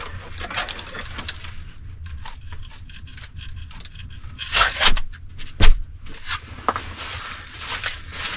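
A twig broom brushing and scraping over a dirt-and-log floor and a wooden door, with scattered knocks; a sharp knock about five and a half seconds in is the loudest sound.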